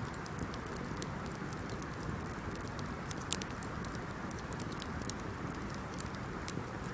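Wood bonfire burning: a steady low rush of flame with irregular sharp crackles and pops, one louder pop about three seconds in.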